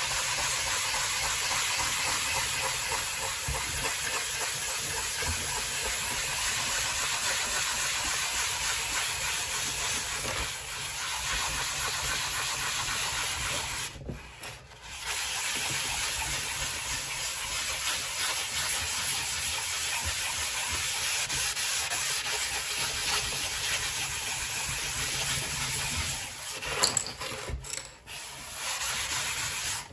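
A medium-grit sanding sponge is rubbed back and forth by hand over a Creality glass 3D-printer bed, a steady scratchy rubbing hiss that roughens the glass surface for better print adhesion. It pauses briefly about halfway through, and there are a few short knocks near the end.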